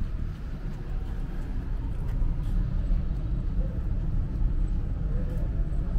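Wind buffeting the microphone, a steady, unevenly fluttering low rumble, with a faint hum of city traffic beneath it.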